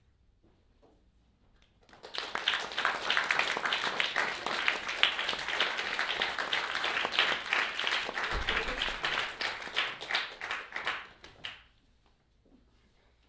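Audience applauding, starting about two seconds in and dying away shortly before the end.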